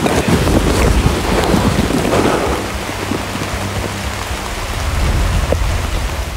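Rain falling in a forest with gusts of wind buffeting the microphone, a deep rumble that swells in the first two seconds and again about five seconds in.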